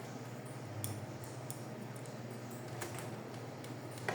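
Faint, scattered small clicks of a screwdriver and metal parts as screws are driven into the printer's frame, over a low steady hum.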